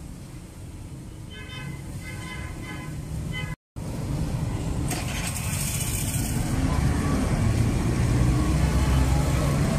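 Busy street traffic: motorbike and car engines rumbling past, growing louder in the second half. A plastic bag rustles briefly about five seconds in. The sound drops out for a moment just before four seconds.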